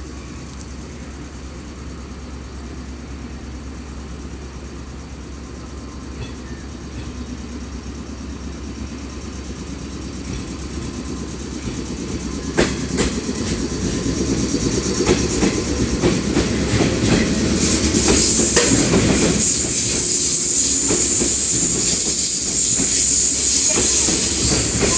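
JR West 113 series electric train pulling out and gathering speed, growing steadily louder, with the wheels clacking over rail joints from about halfway in. Over the last seven seconds it is loudest, with a bright hiss and a thin, high, steady tone.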